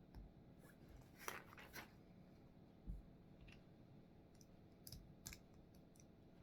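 Faint, scattered clicks and taps of small plastic Lego pieces being handled and pressed together, about half a dozen separate clicks with the loudest pair about a second and a half in.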